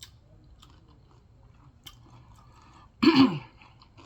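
Quiet chewing of crunchy nacho and Doritos chips, with a few faint crunches. About three seconds in comes a short, loud vocal sound whose pitch falls.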